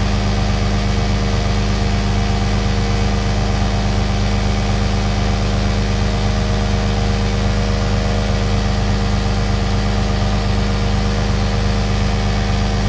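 Harbor Freight Pittsburgh 150 PSI 12-volt portable air compressor (model 69285) running steadily while pumping a truck tire past 60 psi, over the truck's diesel engine idling.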